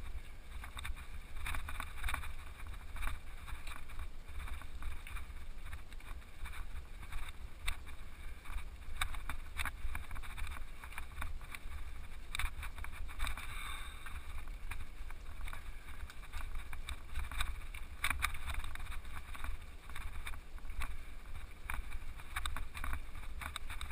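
Mountain bike climbing a loose gravel track, heard from a bike- or helmet-mounted action camera. A steady low wind rumble on the microphone runs under irregular crunches and clicks of the tyres over stones.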